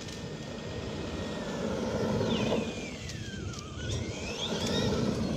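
Axial SMT10 electric RC monster truck driving on pavement: a motor and gear whine that falls in pitch as it slows about two seconds in, then rises again as it speeds up, over the rumble of its tyres.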